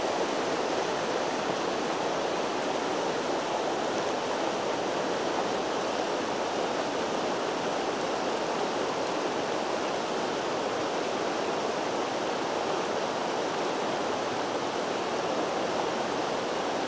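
Whitewater rapids of a mountain river rushing steadily over boulders: a constant, even water noise.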